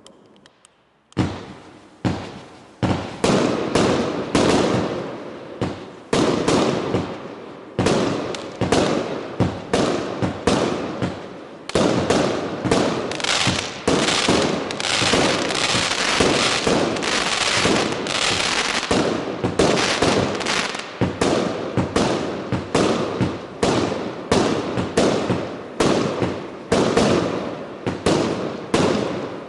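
Fireworks barrage firing a rapid string of bangs, about two a second, starting about a second in. From about twelve to twenty seconds in the shots merge into a dense, continuous crackle, then separate bangs return.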